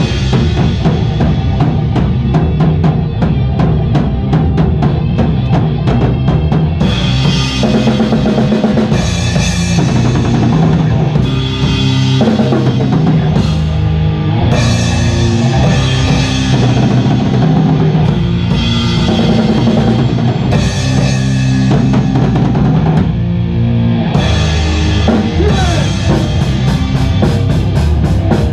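Doom/stoner rock band playing loud through a GoPro's microphone in a rehearsal room: a drum kit driving with bass drum and snare under a low bass line. About seven seconds in, heavier chords with crashing cymbals come in, in repeating phrases.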